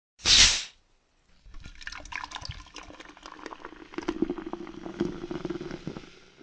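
A soda can cracked open with a short, loud hiss. About a second later comes a fizzing pour of cola into a glass, crackling with many tiny bubble pops, with a filling tone in the second half before it fades out.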